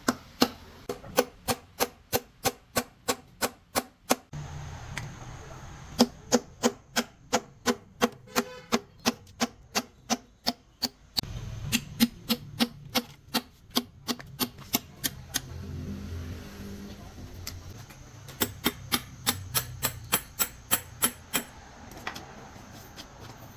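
Hammer tapping on metal truck gearbox parts: rapid, even strikes about three to four a second, in runs of a few seconds with short pauses between them.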